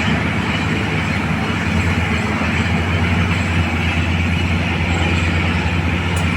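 Steady heavy mechanical rumble with a deep low drone, which strengthens a little about two seconds in.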